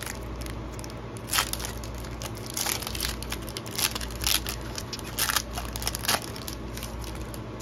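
Foil wrapper of a Chronicles Football trading card pack crinkling and crackling as it is torn open by hand, in short irregular bursts several times, over a steady low hum.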